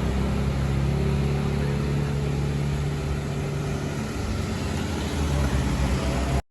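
Tour bus engine running steadily, a low hum that eases slightly about four seconds in.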